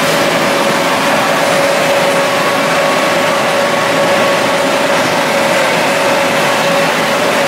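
Electric blower fans keeping a bounce-house inflatable up, running as a steady rush of air with a constant hum.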